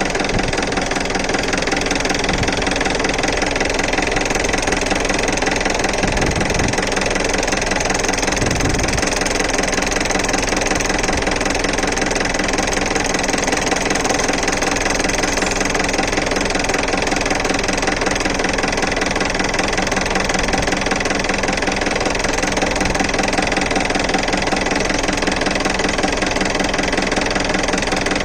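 Jeep engine, freshly repaired, idling steadily after a hard cold start.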